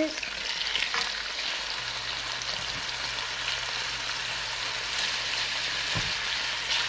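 Seasoned chicken sizzling steadily as it fries in a pan, with two sharp clicks, about a second in and near the end, as the pieces are turned over.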